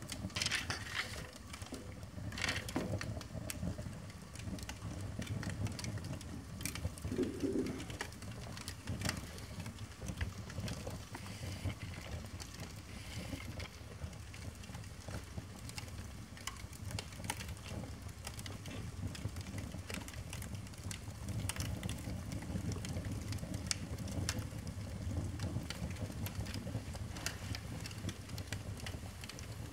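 Stamp album pages burning in a fireplace: the flames make a low, fluttering rumble, with scattered crackles and snaps from the burning paper.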